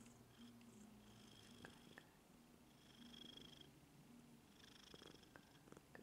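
Maine Coon cat purring faintly and steadily while being scratched behind the ear, with a couple of small clicks about two seconds in.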